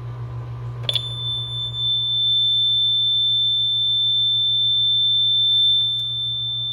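Honeywell alarm panel's built-in sounder giving a steady, high-pitched continuous tone for a medical panic alarm, starting about a second in just after a key-press click. A steady low hum runs underneath.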